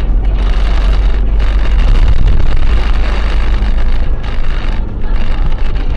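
Car driving on a wet, slushy road, recorded by a dashcam inside the cabin: steady, loud engine and tyre noise with a deep rumble.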